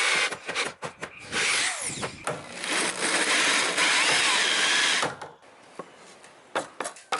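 Electric drill running: a few short stop-start bursts, then one steady run of about four seconds that cuts off, followed by a few light knocks.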